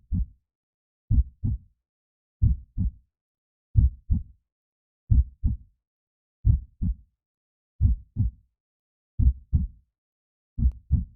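Heartbeat sound: a slow, steady rhythm of low double thumps, nine beats about 1.3 seconds apart.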